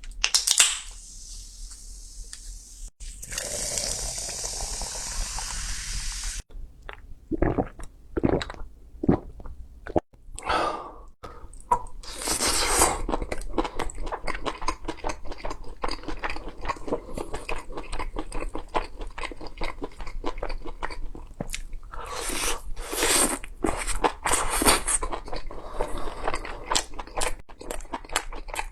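Close-miked eating: crunchy food being bitten and chewed in rapid, crisp crunches, with louder bites in clusters. About three seconds in, a steady hiss runs for about three seconds.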